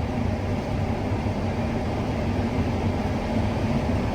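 Combine harvester running steadily while cutting corn: a continuous low machine drone with a steady hum.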